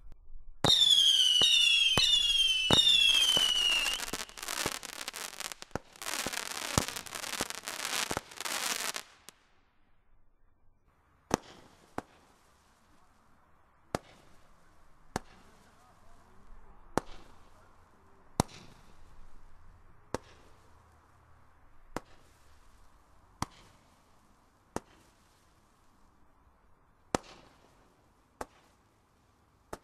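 Consumer firework barrage firing. Several whistling shots fall in pitch among sharp bangs, followed by dense rapid popping that stops about nine seconds in. After a short lull, single shots fire with a sharp bang roughly every second and a half.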